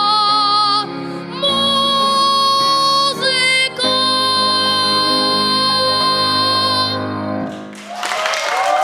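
A boy singing a long held final note of a ballad over a backing track, the accompaniment closing out beneath him; the music stops about a second before the end, and clapping starts.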